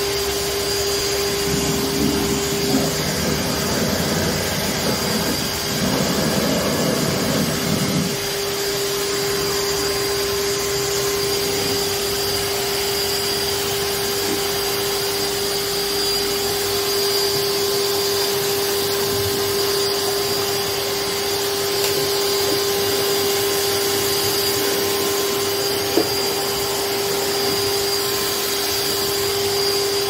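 Wet and dry vacuum cleaner motor running steadily at high speed, a constant whine over rushing air. For a few seconds near the start a rougher, lower rushing sound is added, then the steady whine carries on, with one short click later.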